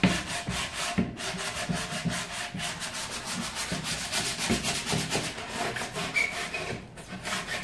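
Hand sanding a louvered wooden cupboard door with a sanding block: quick, even back-and-forth scraping strokes, pausing briefly about a second in and again near the end. The door is being sanded down to prepare it for fresh paint.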